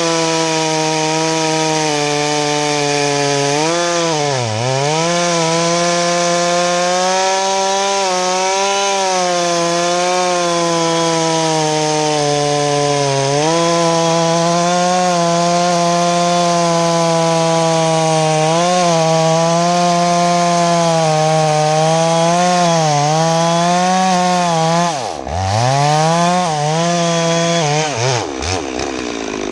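Farmertec Holzfforma G660 two-stroke chainsaw with a 36-inch bar running at full throttle in a cut through dry hardwood, its pitch sagging briefly a few times under load. Near the end the throttle is released: the engine drops toward idle, is blipped a few times, and falls back.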